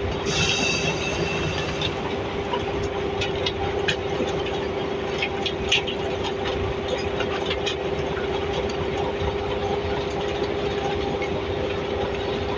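Heavy earthmoving machinery running steadily with a constant whine, with scattered metal clanks and knocks and a brief high squeal near the start.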